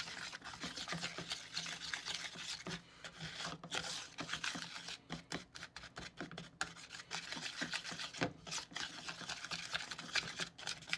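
Small spatula stirring and scraping thick cake batter around a small plastic bowl, a continuous run of soft, irregular scrapes.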